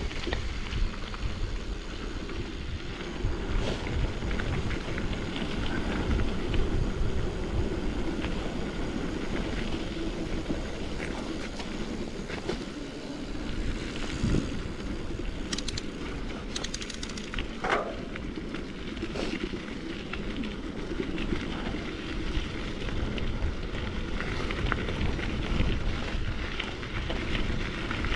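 Mountain bike rolling along a rough dirt trail: steady tyre rumble with wind on the microphone and many small rattles and clicks from the bike, plus a brief squeak about two-thirds of the way through.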